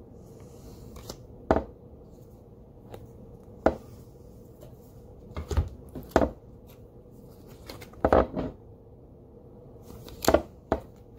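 A deck of tarot cards being handled and shuffled by hand: irregular sharp snaps and taps of the cards, about eight of them, a second or two apart.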